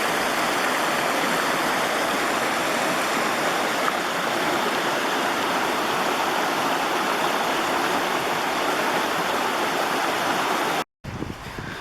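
Steady, loud rush of fast-flowing mountain creek water. It cuts off abruptly about eleven seconds in, and a much quieter outdoor background follows.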